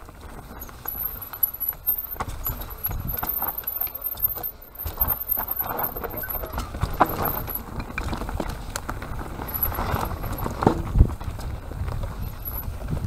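Mountain bike descending a rough dirt trail: tyres rolling over dirt and roots, with the bike's chain and frame rattling and knocking over the bumps, and a few harder knocks.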